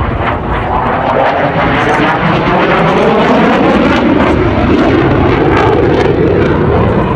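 F-15QA fighter's twin General Electric F110 turbofans running loud as the jet passes low, a steady jet roar with a slow sweeping, phasing quality as it goes by.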